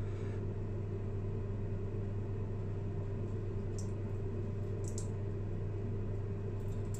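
Steady low hum of room tone, with a few faint short hisses about four and five seconds in and again near the end as saline is squirted into a nostril from a syringe during a nasal rinse.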